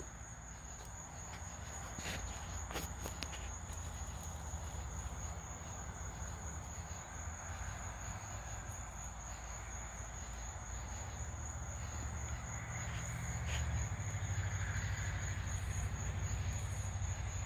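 Crickets trilling steadily in one high unbroken tone, over a low background rumble that grows a little louder in the second half. A few faint clicks stand out, near two and three seconds in and again later.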